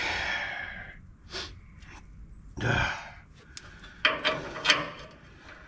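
A man breathing hard as he works, with a few sharp knocks about four seconds in.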